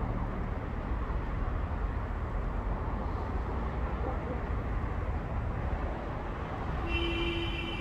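Steady low rumbling background noise. About seven seconds in, a steady high-pitched tone joins it.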